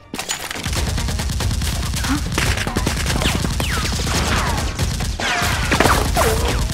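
Rapid gunfire, many shots in quick succession, starting suddenly and running on at an even pace, with a few falling whistle-like tones over it in the second half.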